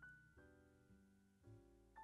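Faint background piano music, soft notes following one another about every half second.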